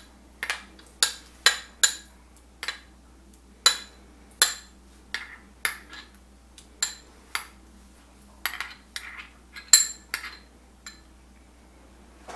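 Metal spoon clinking and tapping against a small glass jar of minced garlic as it is scooped out into a crock pot: sharp ringing clinks, irregularly spaced at about one or two a second, with a quick cluster of louder ones about three quarters of the way through.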